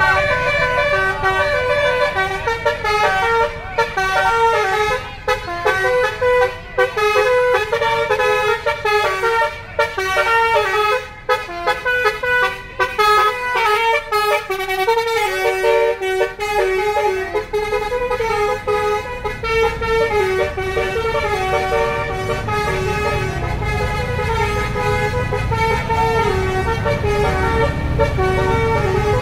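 Tour bus's basuri musical air horn (a 'telolet' horn) playing a long tune of stepped notes, over the low rumble of the bus's engine.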